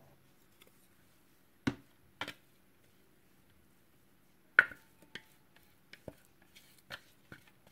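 A kitchen utensil tapping and scraping against the food processor bowl and a stainless steel tray as shredded vegan meat floss is emptied out: a few sharp clicks, the loudest about four and a half seconds in, then a run of lighter ticks.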